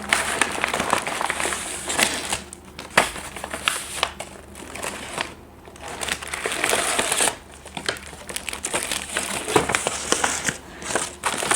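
Packaging crinkling and rustling in bursts, with many small crackles and clicks, as a parcel is opened and its contents unwrapped by hand.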